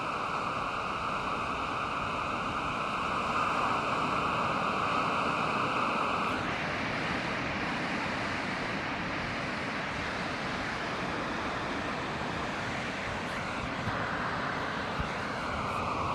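Pacific Ocean surf breaking on the beach, a steady rush of wave noise that swells a little a few seconds in.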